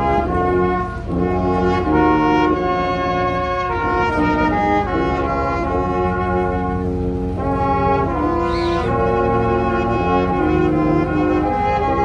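Small live brass band of trumpets and tuba playing a slow tune in held chords.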